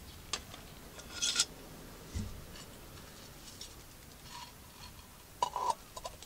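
Metal mess tin and its wire bail handle clinking and scraping as the lid, loaded with burning charcoal, is lifted off and handled with a gloved hand; a dull thud about two seconds in, and a short ringing metal clink near the end.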